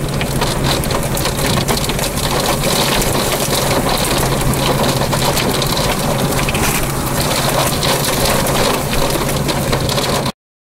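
Wind-driven rain pelting a vehicle's windshield and body from inside the cab: a dense, steady patter of drop hits over rushing wind, with a steady low hum underneath. The sound cuts off suddenly near the end.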